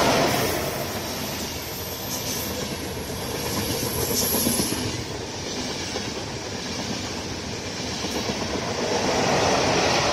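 A passenger train passing close by at speed without stopping: a continuous rushing of wheels on the rails that swells and eases as the coaches go by.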